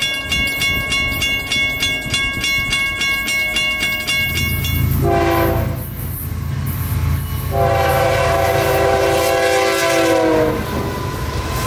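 Florida East Coast Railway freight train approaching: a rapid, regular ringing stops about five seconds in, then the diesel locomotive's horn sounds one short blast and one long one, the long blast dropping slightly in pitch at its end as the engines rumble past.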